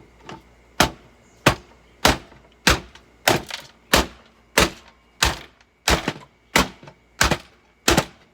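About a dozen sharp knocks struck in a steady rhythm, roughly three every two seconds, each a short hard impact.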